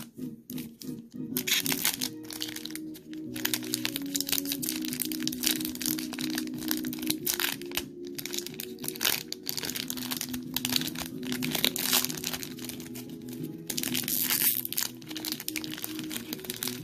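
Crinkling of a foil Pokémon card booster-pack wrapper being handled and opened, dense crackling that comes and goes in clusters. Background music with held notes plays underneath.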